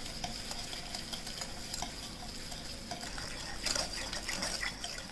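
Stainless-steel balloon whisk beating melted butter and powdered sugar in a glass bowl: a steady run of soft scraping with light clicks of the wires against the glass, a little louder between three and a half and four and a half seconds in.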